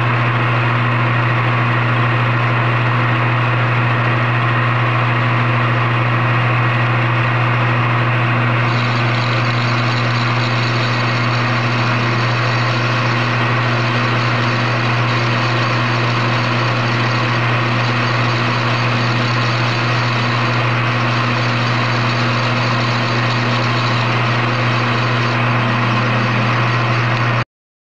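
Metal lathe running steadily with a strong low hum, turning a disc between centers while a plain cutoff tool takes light cuts. A higher hiss joins about eight seconds in.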